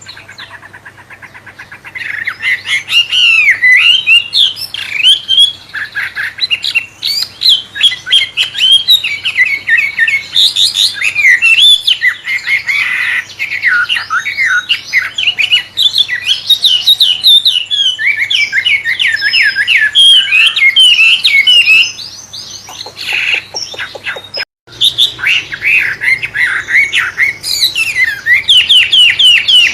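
Wambe songbird singing a fast, varied, murai-like string of whistled phrases, broken by buzzy rattling trills soon after the start and a little before the end. The song stops for a split second about 25 seconds in, then carries on.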